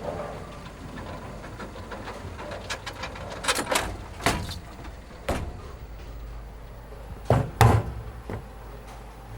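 A series of about six sharp knocks, the loudest a quick pair in the second half, over a steady low background hum.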